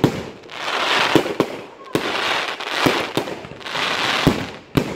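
Aerial fireworks bursting: a string of sharp bangs every second or so, with the crackling of glittering stars filling the gaps between them.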